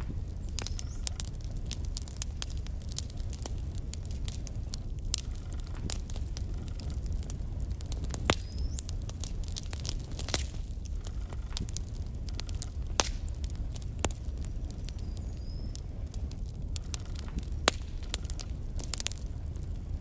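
Wood logs burning in a fireplace: a steady low rumble of the flames under frequent crackles, with a few louder sharp pops scattered through.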